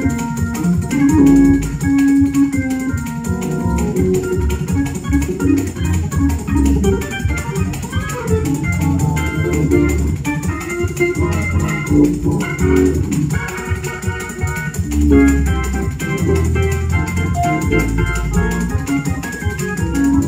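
Live band playing: organ and keyboard chords and runs trading licks over a drum kit and bass guitar.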